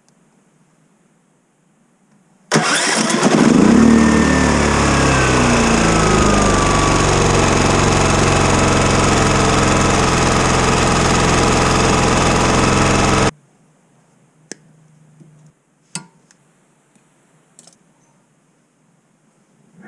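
Pulsar portable generator's small engine starting, picking up speed within a second and then running steadily at a constant speed, with a faint whine falling in pitch early on; the sound cuts off suddenly after about ten seconds.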